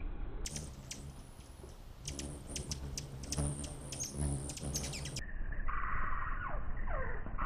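Hummingbirds hovering at a feeder: low wing hum with sharp, high chip notes and clicks. About five seconds in, this gives way to a duller, muffled sound with several falling, whine-like glides.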